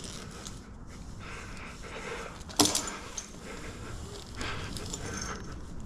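Climbing rope rustling as it is pulled down through a redirect in a tree, with one sharp knock about two and a half seconds in, over steady outdoor background noise.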